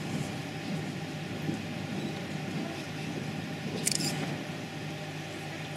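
Background noise of a large sports hall with a standing crowd: a low rustle and shuffle over a steady hum, with one short sharp click or clatter about four seconds in.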